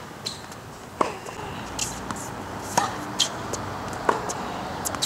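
Tennis ball being hit back and forth in a rally on a hard court: sharp, separate pops of the ball off strings and court, about one every second or so.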